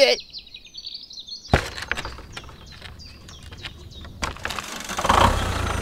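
Sharp clicks and light knocks as a small homemade toy tractor is handled and set down on sand. Its motor then starts running steadily about five seconds in.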